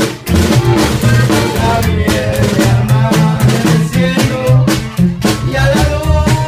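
Loud band music with a steady drum-kit beat and a moving bass line; the sound dips briefly just after the start.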